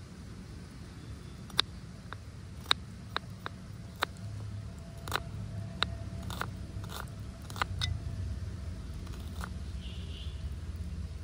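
Miniature food preparation: about a dozen sharp, crisp clicks and crunches at uneven intervals, over a low steady rumble.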